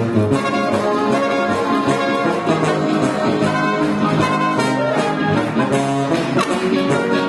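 Oberkrainer folk band playing live: trumpet and clarinet lead the melody over accordion, guitar and a bass horn, in a steady polka-style beat.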